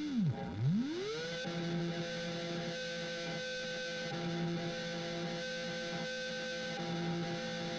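Processed tone from a Make Sounds Loudly effects pedal: a pitched note that swoops steeply down and back up in the first second or so, then holds steady with a pulsing, repeating shimmer.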